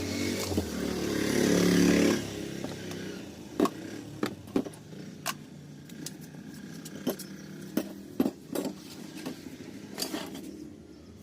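A motor vehicle's engine, rising and getting louder over the first two seconds, then cutting off. After it come about ten scattered sharp clicks and knocks, like hard objects tapped or set down.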